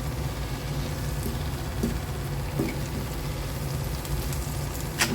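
Ground egusi frying in a pot with a faint sizzle over a steady low hum, a few light knocks, and a sharp clatter near the end.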